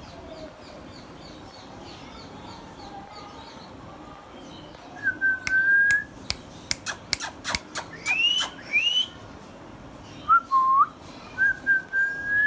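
Indian ringneck parrot whistling: held whistled notes and short rising whistles, with a quick run of sharp clicks in the middle.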